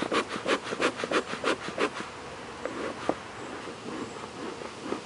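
Beehive smoker bellows being pumped quickly: a run of short puffs of air, about four a second, for the first two seconds, to drive the bees down into the hive before it is closed. Honeybees buzz around the open hive.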